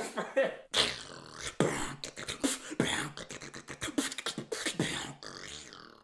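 Beatboxing: a fast, dense run of mouth-made percussion strikes with short pitched vocal sounds between them, cutting off suddenly at the end.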